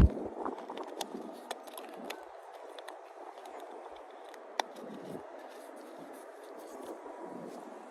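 Quiet eating sounds close to the microphone: scattered small clicks and scrapes of food and its container being handled and chewed, with one sharper click about halfway through.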